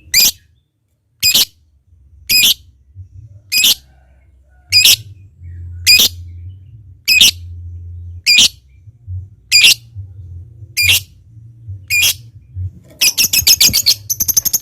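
A lovebird gives short, shrill single calls, evenly spaced about one every 1.2 seconds, then breaks into a fast run of rapid chattering calls near the end.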